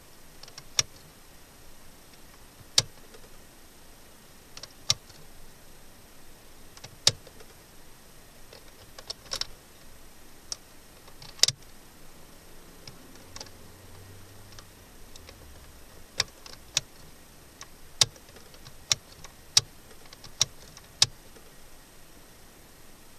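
Sharp clicks of a Chrysler Voyager's ignition key being turned back and forth in the lock, cycling the ignition on and off to call up the stored fault codes. The clicks come a second or two apart, then faster near the end, with a faint low hum about halfway through.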